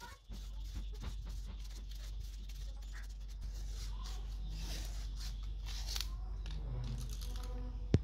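Tape being pulled off a roll, stretched and torn while it is wrapped around a washing machine gearbox shaft seal: small crackles and clicks with a few short tearing hisses, over a low steady hum.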